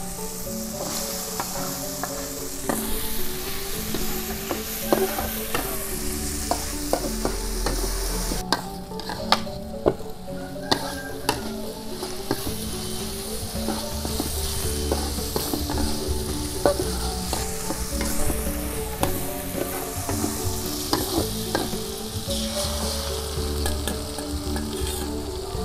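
Chopped shallot, garlic and chilli sizzling in oil in a steel wok, a metal spatula scraping and clinking against the pan as it stirs. Soft background music underneath.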